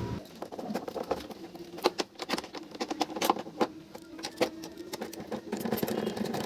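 Irregular clicks, taps and knocks of scooter parts being handled and fitted back into place, over a faint steady hum.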